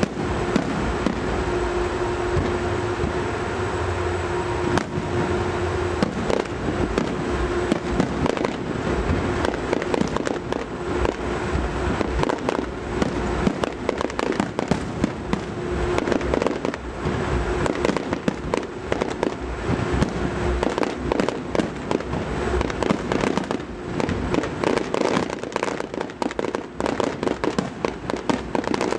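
Fireworks display going off in a dense, continuous barrage of bangs and crackling pops, growing busier about a third of the way in.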